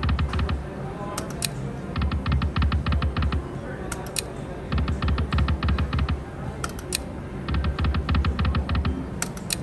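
Video slot machine spinning its reels over and over: each spin is a burst of rapid, even ticking over a low beat lasting about a second and a half, and a pair of sharp clicks falls between spins, about three spins in all.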